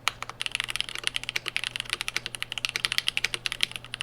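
Fast, continuous typing on a mechanical keyboard with stock, unlubed JWK JWick Black linear switches and GMFake Olivia keycaps on a KBD67 Lite R2 hotswap board, giving a quick run of key clicks.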